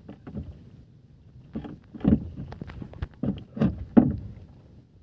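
Irregular knocks and thuds against a small wooden outrigger boat's hull as the anchor line is paid out over the bow, about seven in all, the loudest about two and four seconds in.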